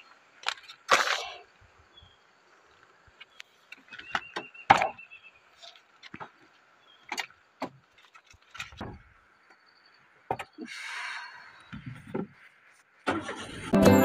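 Scattered clicks, knocks and short rustles of a car door being handled and people getting into the car, with no engine running. Background music comes in near the end.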